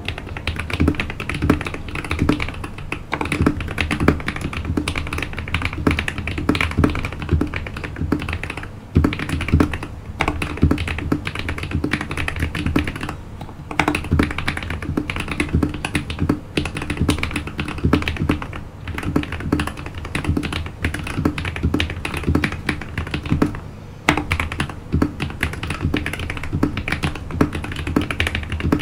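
Continuous fast typing on a Royal Kludge RK100 mechanical keyboard fitted with KTT Kang White linear switches and double-shot PBT keycaps, the large keys such as the space bar and backspace tape-modded: a dense run of key clacks with a few short pauses.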